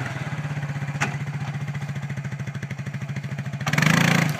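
ATV engine idling with a fast, even pulse, running up louder for about half a second near the end.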